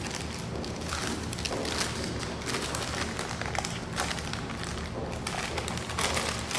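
Wax paper rustling and crackling as it is peeled off a thin sheet of dough, with scattered light taps, over a steady low hum.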